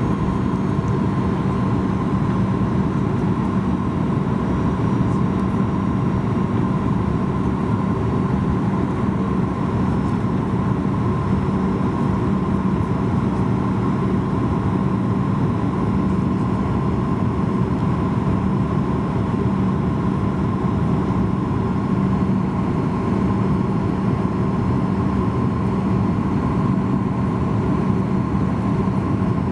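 Steady cabin noise inside a Boeing 737-800 airliner during descent: the roar of its CFM56 turbofan engines and the airflow over the fuselage, with a low hum and a higher tone held steady over it.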